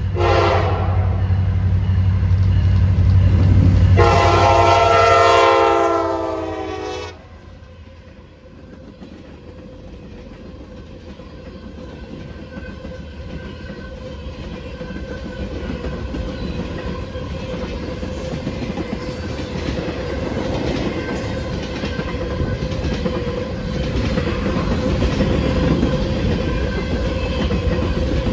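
Diesel freight locomotive passing close with its engine rumbling, sounding its multi-chime horn: a short blast at the start, then a long blast that cuts off about seven seconds in. After that, rail cars roll by with clickety-clack over the rail joints, growing louder toward the end.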